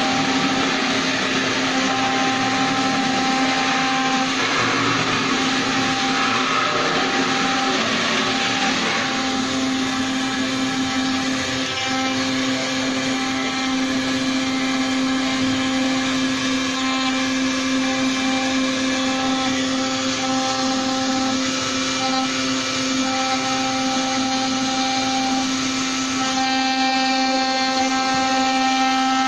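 CNC router spindle running with a steady whine while its small bit carves a relief into a wood panel, over a hiss of cutting noise that eases about nine seconds in.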